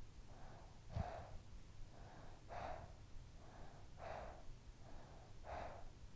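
A sleeping child breathing steadily in soft breathy puffs, a stronger breath about every second and a half with a fainter one between. There is a single soft low thump about a second in.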